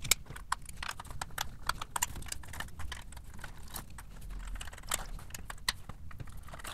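Irregular sharp clicks and knocks of small hand tools and a metal case handled on a tabletop: a screwdriver taken from its plastic bit case, and the IMAX B6AC charger's aluminium case turned over and its screws worked loose. The sharpest click comes right at the start.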